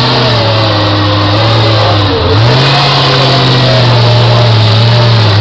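Off-road buggy's engine revving hard as the buggy climbs a steep rocky slope. The revs dip about two seconds in, rise again and hold, then dip once more near the end.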